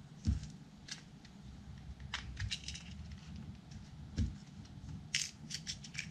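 Packets of fishing hooks and a small plastic box handled on a desk: scattered plastic crinkles and light clicks, with soft thumps on the tabletop about a third of a second in and again near four seconds.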